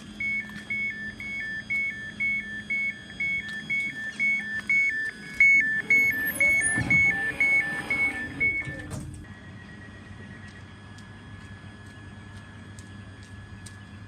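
Door warning alarm of a ScotRail Class 385 electric train: a rapid high-low two-tone beeping, about two cycles a second, sounding while the doors close. It stops just before 9 s in with a knock as the doors shut, and a steady low hum from the train follows.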